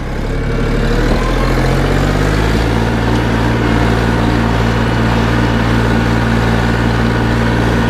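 Mini-tractor engine pulling a two-furrow plough through soil. The engine note rises over the first two seconds or so as the tractor gets under way in third gear, then runs steady under the plowing load.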